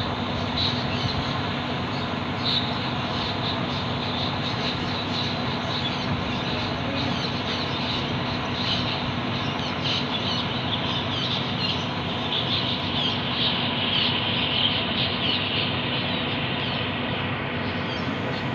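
Many small birds chirping and twittering in short high calls, thickest about two-thirds of the way in, over a steady background hum.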